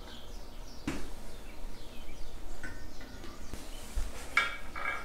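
Metal clinks and knocks as a Farmall MD front wheel hub and its bearing parts are handled and slid onto the spindle: one sharp knock about a second in, then scattered lighter clinks, some briefly ringing, near the end.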